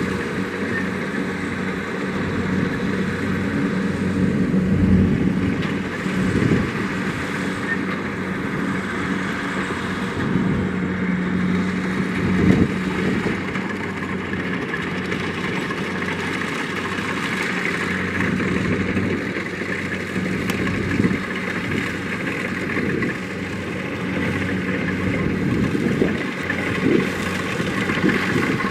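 Kubota DC-70 Plus combine harvester running steadily, its diesel engine and machinery making a constant hum with a few short louder knocks along the way.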